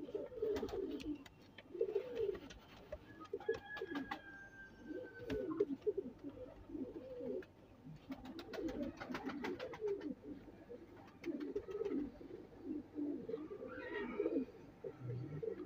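Domestic pigeons cooing over and over in low, warbling phrases, with scattered faint sharp clicks between them.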